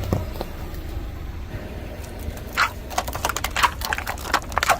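Car tyre rolling over and crushing brittle objects: a dense run of sharp cracks and crunches starting about halfway through, over a low steady hum.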